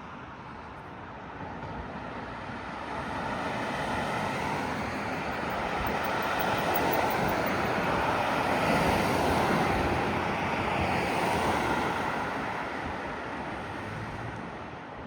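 A vehicle passing by: a broad rush of road noise that swells over several seconds, is loudest around the middle, then fades away.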